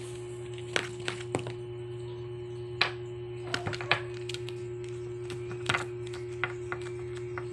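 Irregular light taps and clicks from a kitten's paws and claws batting at a paperback book and paper, over a steady low electrical hum.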